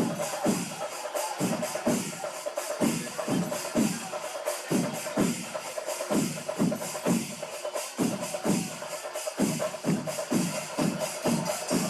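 Temple festival percussion ensemble playing: drums struck about twice a second, each stroke dropping in pitch, over a continuous shimmer of cymbals.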